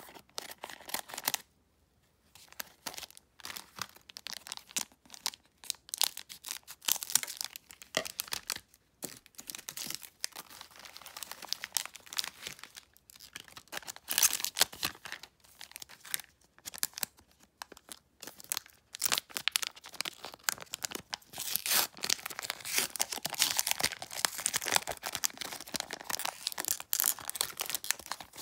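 Plastic trading card pack wrappers crinkling and tearing open, with cards being handled, on and off and busiest in the last several seconds.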